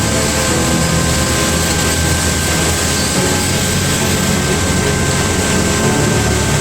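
Steady, loud engine or machinery drone with a deep rumble.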